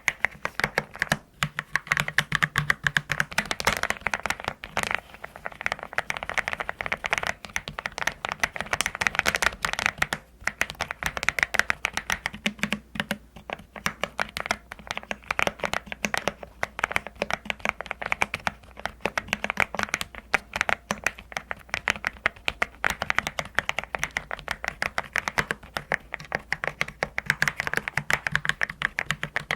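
Fast, continuous typing on a custom mechanical keyboard, its keys giving a deep, pebble-like clack ('도각도각'), with short pauses about a second in and about ten seconds in.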